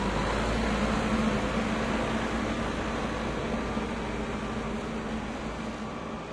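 Tractor engine running steadily with a low, even hum, gradually growing quieter over a few seconds.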